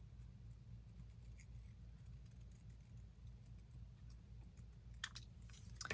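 Near silence: a steady low room hum with a few faint scattered ticks, and a brief faint scrape about five seconds in.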